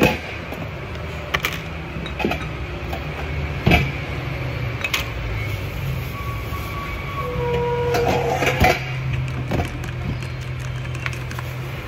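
A vehicle engine running with a steady low hum, with a few sharp knocks and rattles over it.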